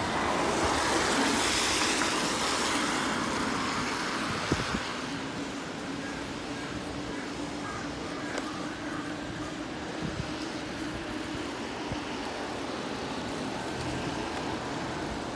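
Electric bike rolling over wet tarmac and then paving slabs: a steady hiss of wet tyres and wind. It is loudest in the first few seconds, with a faint steady hum from the bike later on and a couple of small knocks from bumps in the paving.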